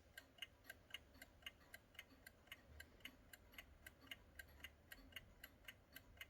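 Vintage wind-up alarm clock ticking faintly and evenly, about four ticks a second.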